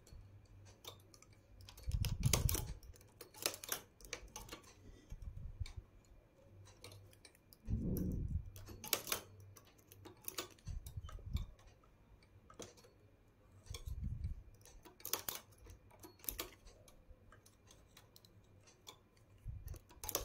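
Faint, irregular metallic clicks and ticks of a latch tool and the metal needles of a flatbed knitting machine as stitches are bound off by hand. A few soft, dull thumps come in among them.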